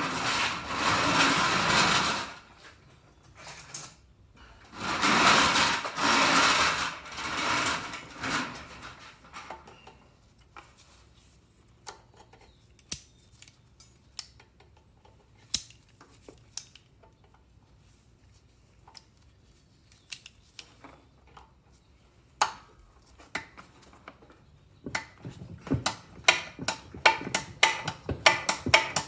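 Workshop tools on the exhaust valve guide of a Honda GCV160 cylinder head: a few bursts of a small power tool running for a second or two each, then scattered metal clicks and a fast run of tapping near the end.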